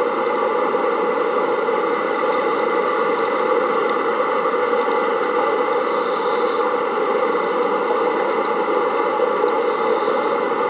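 Steady noise of the plant's running pumps heard underwater, with two brief high hisses about six and ten seconds in.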